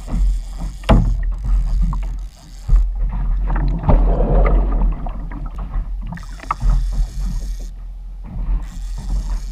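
Water washing against a fishing kayak's hull, over a heavy low rumble of wind and water on the boat-mounted camera's microphone, with a sharp knock about a second in and a louder surge of water around the middle.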